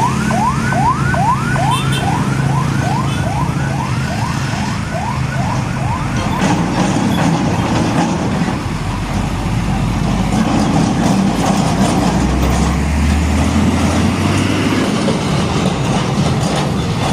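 Electronic siren yelping in quick rising sweeps, about three a second, fading away after about six seconds, over the steady low rumble of heavy road traffic and truck engines.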